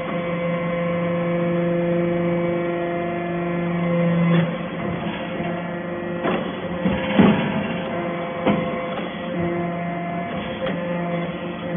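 Hydraulic metal-shavings baler running, its pump giving a steady hum. The hum eases about four seconds in, a few sharp knocks follow with the loudest around the middle, and the steady hum comes back near the end.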